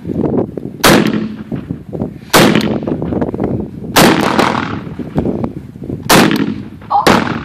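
AK-47-pattern pistol firing semi-automatic 7.62×39 mm rounds: five single shots spaced one to two seconds apart, each a sharp crack with a short ringing tail.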